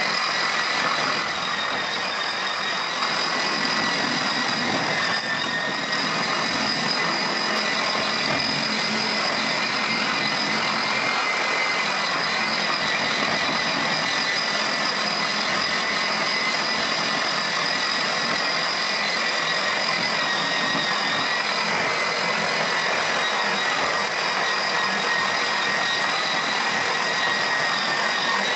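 Handheld electric grinder running steadily with a high whine, its disc worked in circles over wet terrazzo slurry to smooth it.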